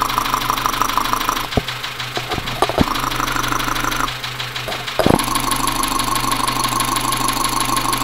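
Dacia Sandero's 1.2 petrol Renault D4F engine running with a rapid, steady knock, picked up through an electronic mechanic's stethoscope probe held against the engine, with a few scraping bumps as the probe shifts. The owner first took the knock for a possible spun bearing from running low on oil.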